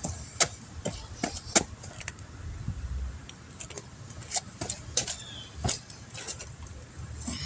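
Tire-repair tools and the sealer container being handled during a tire patch: a string of irregular sharp clicks and light taps, with a low thump about two and a half seconds in.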